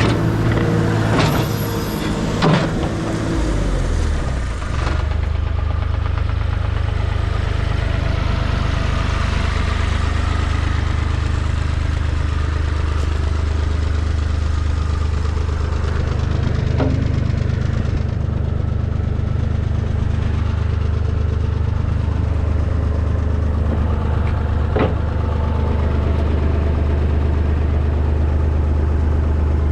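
John Deere 250 Series II skid steer's diesel engine running, dropping and settling into a steady idle about four seconds in. There are a couple of short clicks later on.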